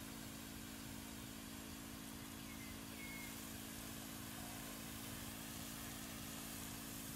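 Garden hose spray nozzle hissing steadily as water is sprayed out, over a constant low machine hum.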